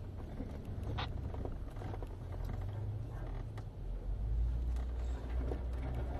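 Lifted Jeep Wrangler on 40-inch mud-terrain tyres crawling over a rocky trail: a steady low engine and drivetrain rumble that gets louder about four seconds in, with a few light knocks as the tyres go over rocks.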